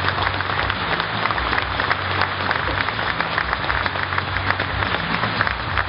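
Large audience applauding steadily, with many hands clapping at once.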